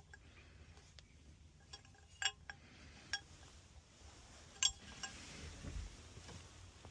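Metal tools and parts clinking against each other while being handled: a few light clinks, then three sharper, ringing ones spread over a couple of seconds.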